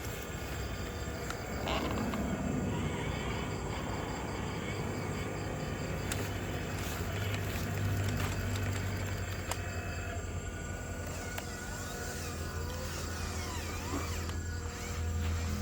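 Radio-controlled dump truck's drive motor running with a low steady hum that swells and eases, amid scattered clicks and knocks.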